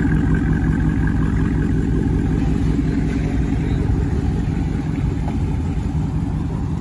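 Dodge Charger's 3.6 L V6 idling with a steady, deep exhaust rumble through its aftermarket exhaust setup.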